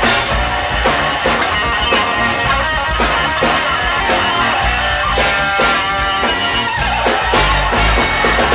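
Live big band playing a funk tune, with a red Jackson electric guitar taking a solo of quick note runs over drum kit and bass.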